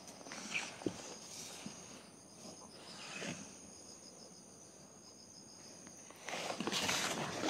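Insects trilling steadily in a high, pulsing chorus, with a few soft rustles and clicks. Near the end a louder rustling of leaves comes in.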